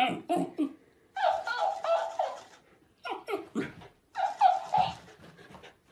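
A dog gives short yips and woofs at a plush talking-hamster toy, and the toy plays each lot back as a longer, squeaky, higher-pitched repeat. It happens twice: dog, then toy, then dog, then toy.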